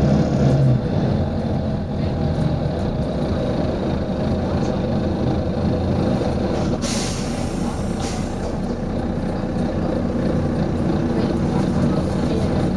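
Volvo B9TL bus's six-cylinder diesel engine running steadily, with a short sharp hiss of compressed air from the air brake system about seven seconds in and a fainter one just after.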